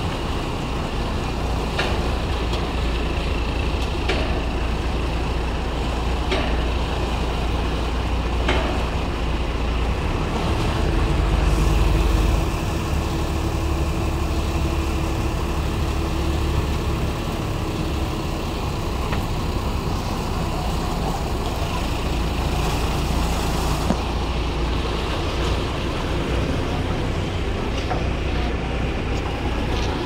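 Boat engine running steadily under way, a continuous low drone with rushing water and wind noise over it. Faint knocks come about every two seconds in the first ten seconds or so.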